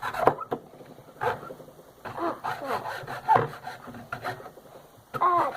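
Hand saw cutting into a plastic remote control casing, with rasping strokes roughly a second apart.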